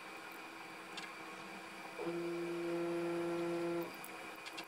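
A small electric motor whirring at one steady pitch for just under two seconds. It starts abruptly about two seconds in and cuts off abruptly, over a low steady hum, with a few light clicks.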